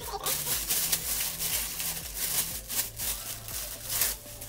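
Clear plastic garment bag crinkling and rustling in irregular bursts as it is opened and handled, over a quiet background music bass line.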